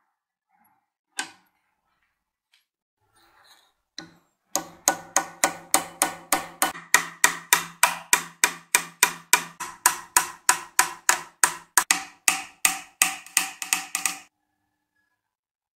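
A hammer tapping a steel punch against the rusty metal rim of an old tire inflator's pressure gauge, clamped in a vise. The strikes come in a steady run of about three or four ringing metal blows a second for nearly ten seconds, starting about four and a half seconds in. A single knock comes about a second in.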